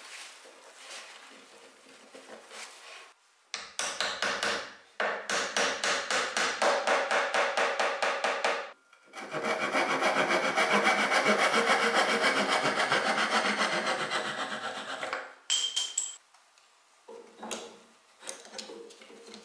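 Fast runs of hammer taps driving glued wooden dowels into a wooden chair's armrest joint, then a longer, denser stretch of quick scraping taps. Near the end come lighter knocks and clicks as bar clamps with wooden pads are fitted.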